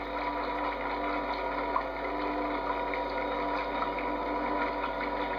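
Steady whir of the prototype oil-skimming craft's small motor and pump running, with water churning around the hull as it moves through the water.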